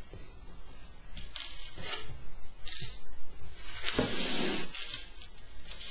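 Small metal hardware, screws and nuts, being picked up and handled on a wooden tabletop: a few scattered clicks and scrapes, the sharpest about three seconds in.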